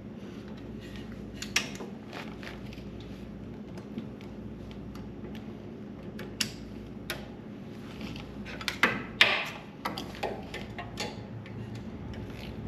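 Scattered metallic clinks and taps of hand tools against steel parts during work on a Jeep's front steering, with a busier run of clinks about two thirds of the way through, over a steady low hum.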